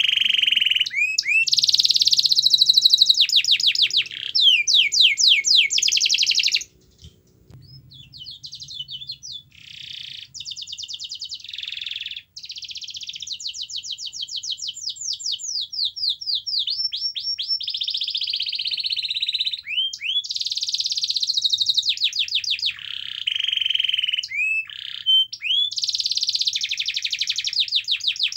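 Domestic canary singing a long, near-continuous song of rapid trills, fast runs of repeated gliding notes and rolling phrases. It drops away briefly about seven seconds in, then builds back to full song.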